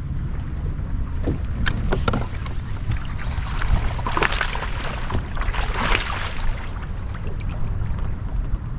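Low, fluctuating rumble of wind buffeting the microphone, with a few light clicks and two brief hissing rushes about two seconds apart.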